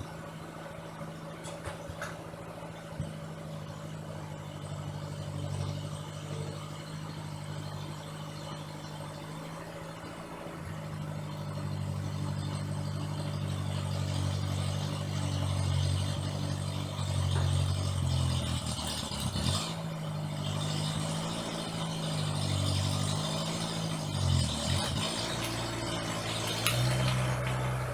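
An engine running, steady and low at first, then louder from about ten seconds in. Its speed rises and falls, dropping sharply twice before picking up again.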